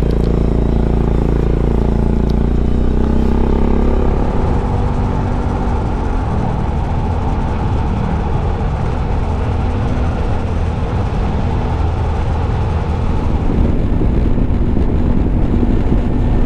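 Honda ADV350 scooter's single-cylinder engine running steadily at highway cruising speed, with wind and road noise. The steady hum gives way to a noisier rush about four seconds in, and the engine note comes through again near the end.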